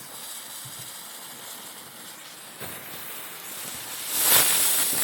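Small tank novelty fireworks spraying sparks with a steady hiss that grows louder about four seconds in.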